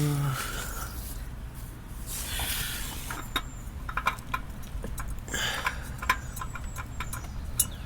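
Scattered small clicks, knocks and scraping from hand work under a car during an oil change, with two brief rustling rushes.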